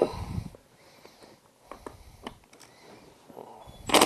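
A low thud and a few light clicks as a motorcycle final drive case is handled, then near the end a short burst from a cordless power tool on its fill plug as the plug is loosened.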